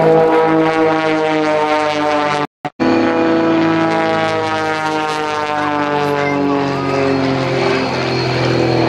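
Piston engines and propellers of aerobatic biplanes in flight: a steady buzzing drone whose pitch slowly falls in the second half, with a brief dropout about two and a half seconds in.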